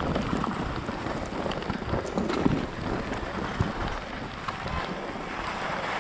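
Wind buffeting a moving action camera's microphone: a steady rushing hiss with low rumbling and a few faint clicks.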